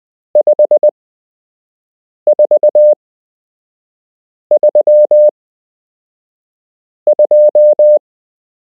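Morse code practice tone sending numbers: four groups of short and long beeps at one steady pitch, about two seconds apart. The first three read 5, 4 and 3.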